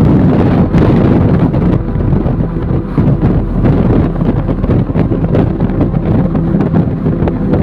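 Heavy wind buffeting the microphone over a steady low engine hum, as from a moving vehicle or boat.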